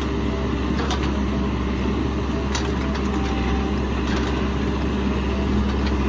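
Caterpillar 416F backhoe loader's diesel engine running steadily with a low, even drone while its rear backhoe arm digs.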